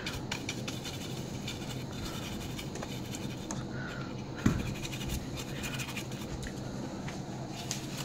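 Small soft brush scratching over the cooling fan and plastic chassis of a Lenovo IdeaPad Z40-70 laptop as dust is brushed out of it, in quick light strokes. One louder knock comes about halfway through.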